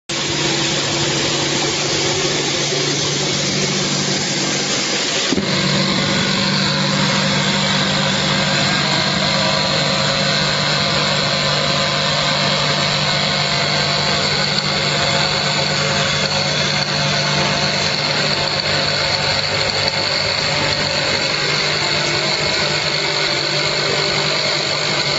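A pressure washer running steadily: a motor's even drone under a continuous hiss of spraying water. The sound changes abruptly about five seconds in, then carries on the same way.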